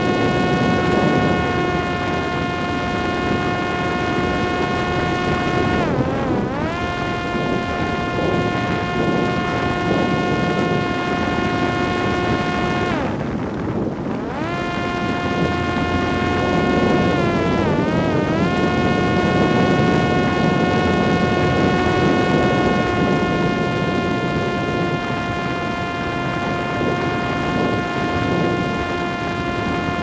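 Parrot Disco fixed-wing drone's electric motor and rear pusher propeller whining steadily in flight, with wind rushing over the airframe. The pitch dips and recovers about six seconds in, cuts out for about a second around thirteen seconds in and comes back rising, and wavers once more around eighteen seconds in.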